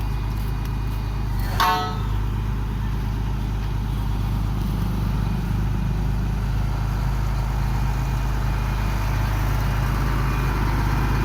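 GD45 horizontal directional drilling rig's diesel engine running steadily, with a short horn-like toot about one and a half seconds in.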